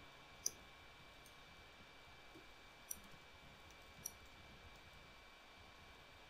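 Near silence with a faint steady hiss, broken by a few faint clicks of typing on a computer keyboard; three stand out, about half a second, three seconds and four seconds in.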